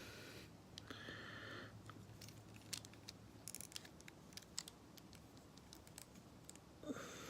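Faint, scattered clicks and light rattling of a plastic Transformers action figure's parts being handled and moved during transformation.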